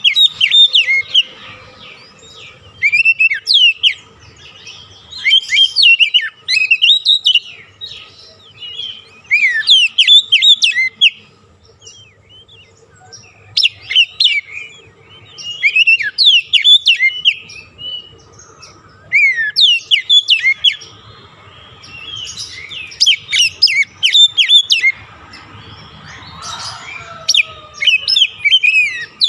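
Oriental magpie-robin (kacer) singing: phrases of fast, high, sweeping chirps and whistles, each lasting a second or two, with short pauses between them.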